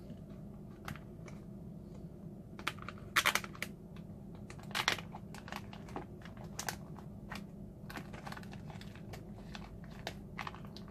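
Plastic zip-top freezer bags crinkling, with scattered sharp clicks and crackles as their zip seals are pulled open and the bags are handled. A steady low hum runs underneath.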